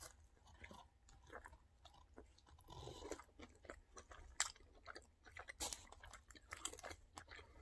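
A person chewing a mouthful of Impossible Whopper burger close to the microphone: faint, irregular soft clicks and smacks of the mouth, a few slightly louder ones in the second half.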